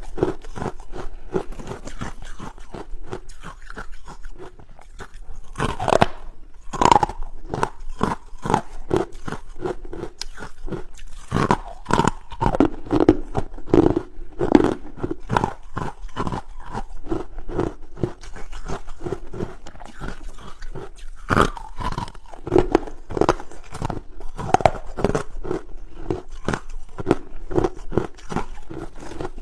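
Hard carbonated ice being bitten and chewed up close: a fast, irregular run of sharp crunches, with a few louder bites among them.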